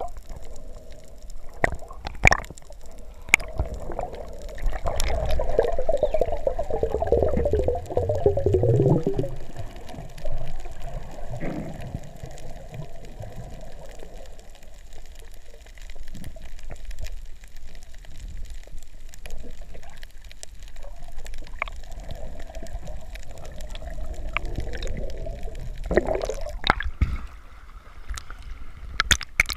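Muffled underwater water noise picked up through a waterproof camera housing while snorkeling over a reef, with a louder swirling stretch several seconds in. Near the end, water sloshes and splashes as the camera breaks the surface.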